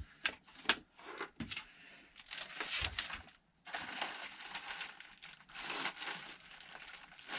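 Packaging being handled: crinkling and rustling, with a few sharp clicks in the first second or so and a short pause midway.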